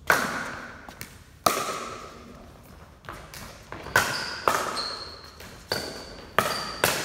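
Pickleball rally: paddles hitting a plastic pickleball, about eight sharp hollow pocks at an uneven pace, each ringing briefly in a large echoing hall. A few short high squeaks come in the second half.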